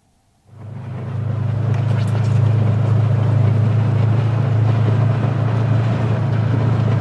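Side-by-side UTV engine running steadily as the vehicle drives along a dirt track, a loud low drone with rattling and driving noise, heard from the driver's seat. It comes in suddenly about half a second in and builds over the next couple of seconds.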